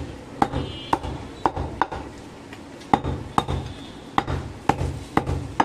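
Large butcher's knife chopping goat meat and bone on a wooden chopping block: about ten sharp knocks at an uneven pace, roughly two a second.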